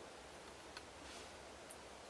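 Near silence: faint room tone with two small faint ticks, about three-quarters of a second in and near the end.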